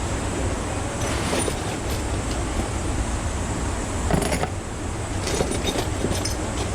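A few short metallic clinks and rattles of hand tools and sockets, loudest a little past the middle, over a steady background rumble.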